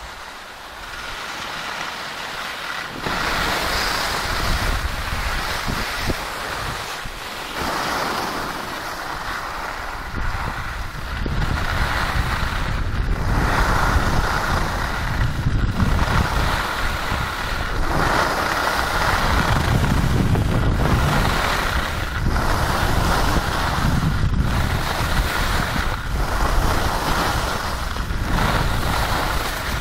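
Wind rushing over the microphone and skis scraping and hissing on packed snow during a downhill ski run, swelling and easing with the turns. The low wind rumble grows stronger about a third of the way through as speed picks up.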